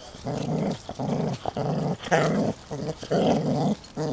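A dog growling in a quick run of short, rough growls, about seven in four seconds with brief gaps between them.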